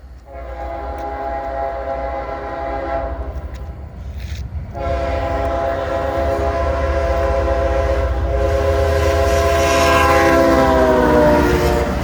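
Diesel locomotive air horn sounding for a grade crossing: a blast of about four seconds, then after a short gap a long blast of about seven seconds whose pitch falls near the end as the locomotive passes, over the low rumble of the train.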